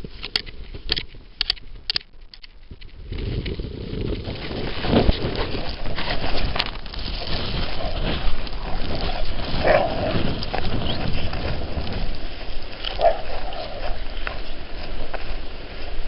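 Wind buffeting the microphone, a low rumbling noise that rises and falls in gusts. There are a few sharp clicks in the first two seconds and two short louder sounds about ten and thirteen seconds in.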